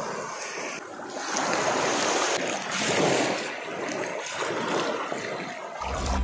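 Small sea waves lapping and washing onto a sandy shore, the wash swelling and fading every second or two. Music comes in just before the end.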